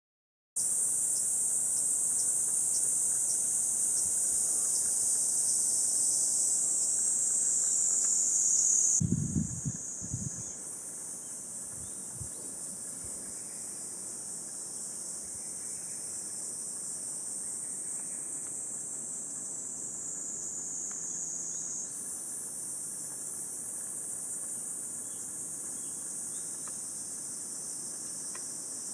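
Cicadas calling in a steady, high-pitched buzzing chorus. A few dull low thumps about nine to ten seconds in, where the chorus drops a little in level.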